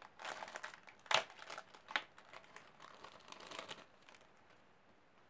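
A small plastic packet being crinkled and torn open by hand, with two sharp snaps about one and two seconds in.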